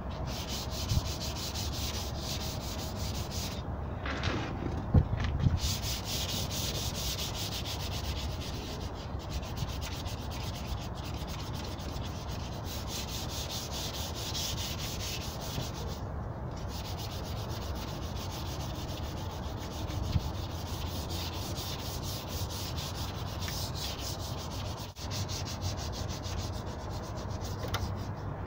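Hand sanding of a pickup truck's rocker panel with fine P320 sandpaper: rapid back-and-forth scratching strokes, with short pauses about four seconds and sixteen seconds in, and a few louder bumps around five seconds.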